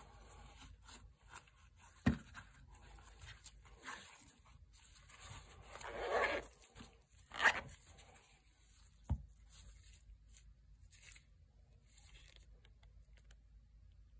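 A small zippered lens case being closed and zipped shut: a short rasping zip a little past the middle, with light knocks and rustling of the case as it is handled.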